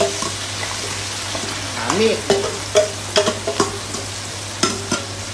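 Chopped chillies, garlic and onion tipped into a pan of hot oil and frying with a steady sizzle. From about two seconds in, a metal ladle knocks and scrapes against the steel bowl and pan several times.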